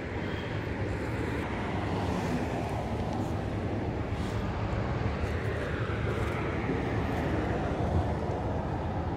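Steady outdoor background noise with a low rumble throughout, and a few faint clicks.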